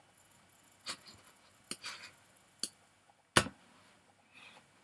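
A few sharp, separate clicks of a computer mouse and keyboard, roughly a second apart, over quiet room tone. The loudest click comes about three and a half seconds in.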